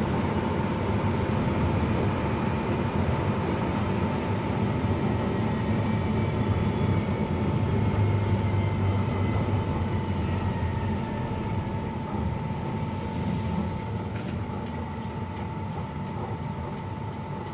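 Medium bus driving at steady speed, its engine and road noise heard from inside the driver's cab as a steady rumble, with a thin, steady high whine running through it.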